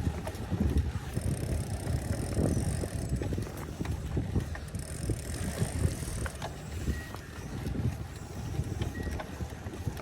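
Gravel bike rolling along a paved trail: uneven tyre rumble and wind buffeting the phone's microphone. A faint high-pitched hiss comes and goes twice.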